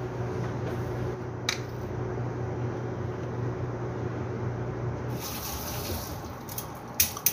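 Kitchen tap running into a sink from about five seconds in, over a steady background hum. A couple of sharp clinks near the end.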